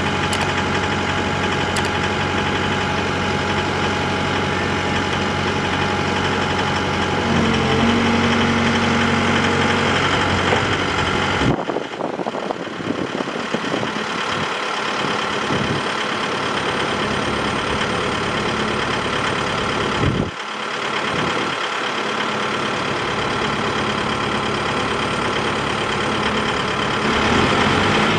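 Komatsu hydraulic excavator's diesel engine idling steadily, with the sound changing abruptly twice, about twelve and twenty seconds in.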